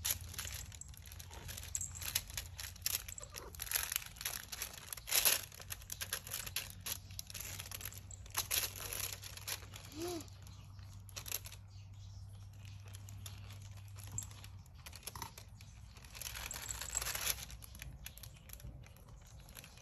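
Diamond-painting drill pen clicking and scraping in a plastic drill tray and tapping resin drills onto the canvas, with crinkling of the clear plastic cover film; irregular small clicks and rustles throughout.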